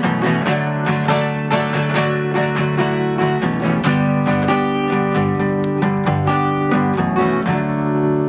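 Acoustic guitar strummed in a steady rhythm, ending on a last chord that is left ringing near the end.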